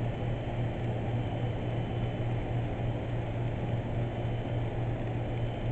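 N-scale model freight train rolling past on the layout's track: a steady low rumble with a constant hum.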